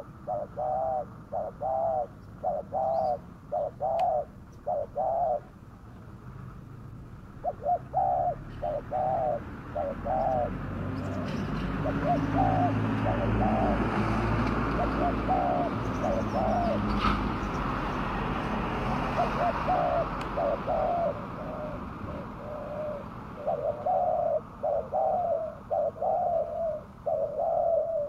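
Spotted dove cooing: runs of short, repeated coos in several phrases with brief pauses between. In the middle a passing car's rumble swells and fades under the calls.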